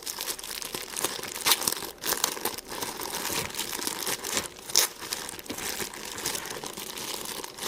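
Plastic and paper packaging crinkling and crackling as it is handled by hand, with sharp crackles, the loudest about one and a half and nearly five seconds in.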